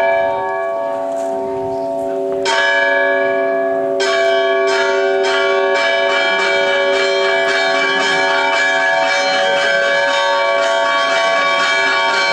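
Church bells ringing: one bell hums on, a fresh stroke lands about two and a half seconds in, and from about four seconds in the bells are struck in quick succession, two or three strokes a second.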